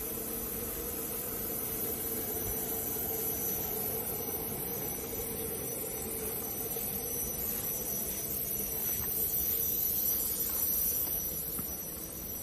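CNC router running with a steady high-pitched whine over a constant hum and hiss.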